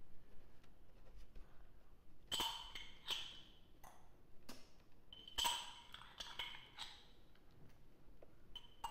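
Kitchenware clinking and clanking: a hard utensil knocked repeatedly against a ringing dish or pot. The knocks come in irregular bursts starting about two seconds in, each with a short ring at the same pitch.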